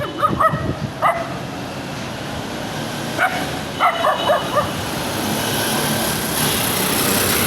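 Small dog barking in short, high yaps: two near the start, then a quick run of four or five barks around four seconds in. A steady hiss grows louder through the second half.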